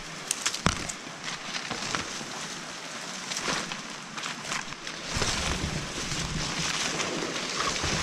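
Rustling and footsteps as someone pushes through dense scrub, with leaves and branches brushing past close to the microphone. There are a few sharp snaps near the start, and the rustling grows louder from about five seconds in.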